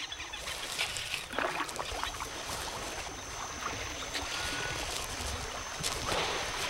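Water sloshing and splashing around a canoe as the paddle works the river, with a brief high whistle about four seconds in.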